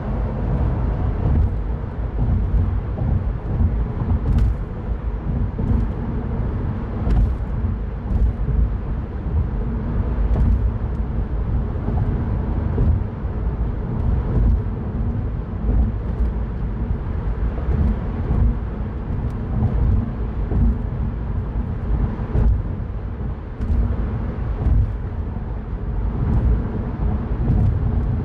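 Mini Cooper Cabrio on the move, heard from the driver's seat: a steady low rumble of engine and tyres on the road, with a hiss of wind and road noise above it and a few faint scattered ticks.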